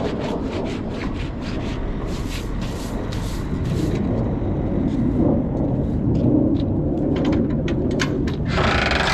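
Mini excavator's diesel engine running steadily under a low rumble, with repeated short metallic clanks and clicks throughout.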